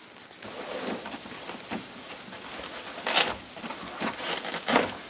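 Rustling and clatter of things being rummaged through in a canvas shoulder bag, with two sharper rustles about three seconds and nearly five seconds in.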